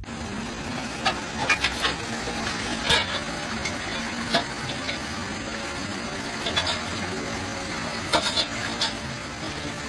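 Floodwater rushing steadily down into a street storm drain whose grate has been removed, with scattered short clicks and splashes.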